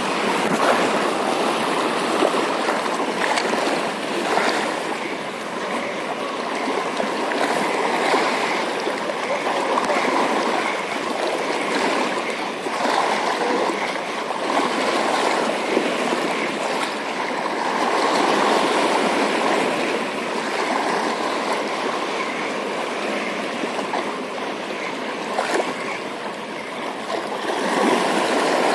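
Sea water washing and splashing around shore rocks: a steady rushing that swells and eases every few seconds.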